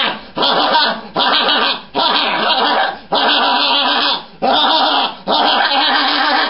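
A puppeteer's voice giving a string of about eight drawn-out, wavering ghostly cries, each under a second long with short breaks between them.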